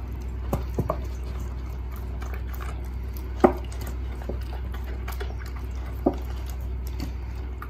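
Rottweiler puppy eating broth-soaked chicken and egg from a steel dog bowl: wet chewing and lapping, with a few sharp clicks against the bowl, the loudest about three and a half seconds in. A steady low hum runs underneath.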